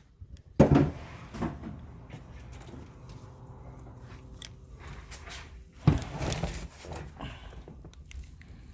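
Two loud knocks about five seconds apart, each followed by rustling handling noise, over a faint steady hum: someone moving about and handling parts and tools around a car in a garage.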